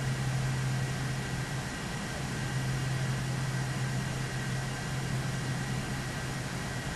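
Steady machine hum with hiss: a strong low hum and a faint thin high whine, even throughout, as from cooling fans or electrical equipment.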